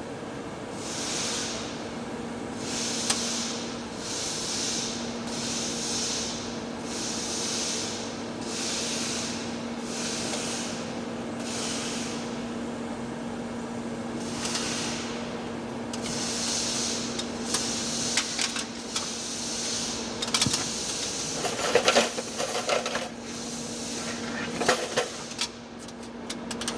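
TIG welding arc on heavy-wall steel pipe: a steady hum under a hiss that swells and fades about once a second. Crackling and sharp ticks come in over the last ten seconds.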